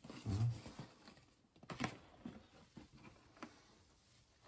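A soft low thump, then a sharp click and a few scattered lighter clicks and taps.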